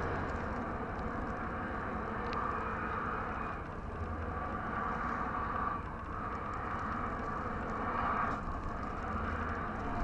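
An SUV stuck in deep snow, its engine revving and its tires spinning while people push it; the whine swells and eases about three times, over steady blizzard wind.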